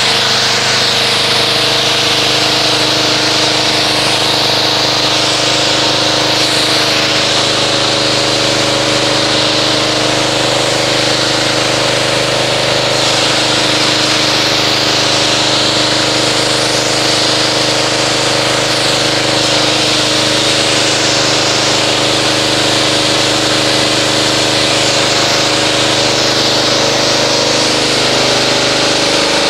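Pressure washer running steadily while its wand sprays water, a constant motor drone under the hiss of the spray.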